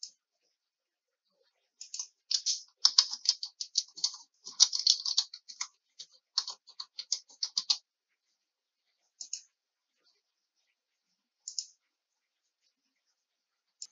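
Typing on a computer keyboard in a quick run of key clicks lasting about six seconds, with a few single mouse clicks before and after.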